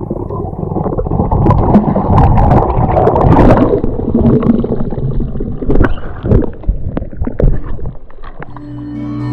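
Sea water splashing and sloshing against a kayak's hull, with wind buffeting the action camera's microphone and occasional sharp knocks. Music starts near the end.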